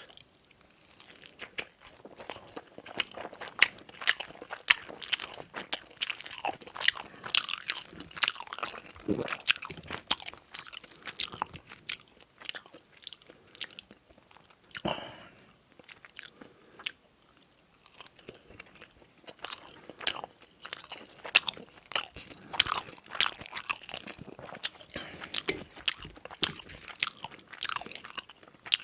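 Close-miked eating sounds: chewing and biting, with many sharp, crunchy, wet clicks coming in runs broken by short lulls.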